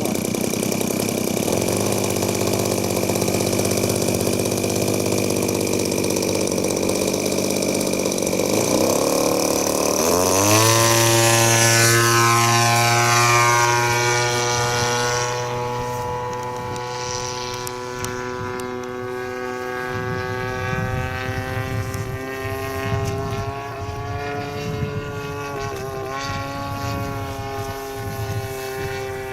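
Acrowot XL model airplane's motor and propeller running at a low setting, then throttling up with a rising pitch about ten seconds in. It then holds a steady, somewhat quieter tone that wavers slightly.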